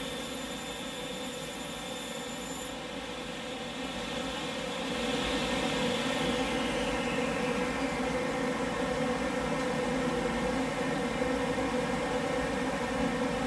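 Table saw and 4-inch single-stage dust collector running together as a steady drone. A cut through foam board ends about three seconds in, where a high whine stops, and a faint whine falls in pitch near the middle.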